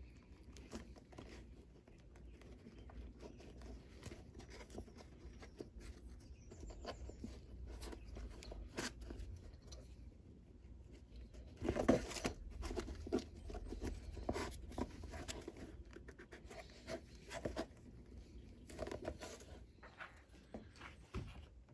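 Hand-stitching a leather welt onto a boot: irregular rasps and clicks as needle and thread are drawn through the leather, getting louder about halfway through.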